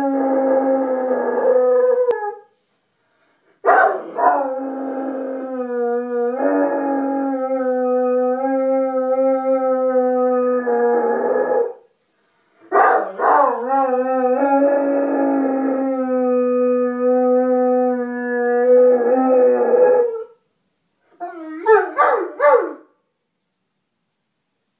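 A Saint Bernard howling: long, steady howls lasting several seconds each with short breaks between them, then a few short, broken howls near the end. The howling is set off by a distant siren that is too faint to hear.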